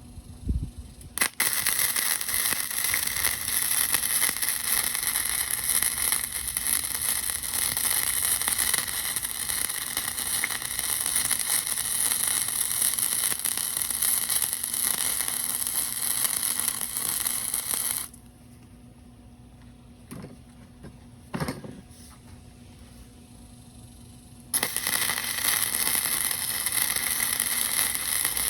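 Electric welding arc crackling steadily during a weld bead on stainless steel. It starts about a second in and stops at about 18 s. After a quieter pause with a couple of light knocks, a second weld starts at about 24.5 s.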